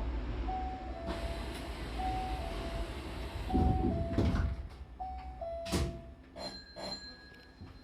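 Hankyu train door-closing chime, a two-note falling ding-dong repeated four times about every second and a half, while the sliding doors shut. There is a heavy thud about halfway through and a sharp clunk a couple of seconds later, then a few lighter knocks.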